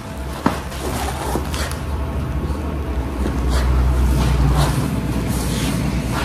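Foil-faced mineral wool insulation panels being handled and slid onto a stack: repeated short crinkling and scraping of the foil over a steady low rumble, with one sharp click about half a second in.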